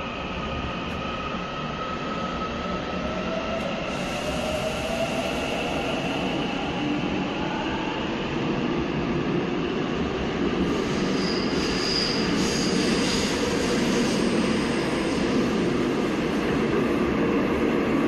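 Seoul subway Line 7 train running along the platform behind the screen doors: steady rumble of wheels on rail with an electric motor whine that shifts in pitch and a thin wheel squeal, growing gradually louder.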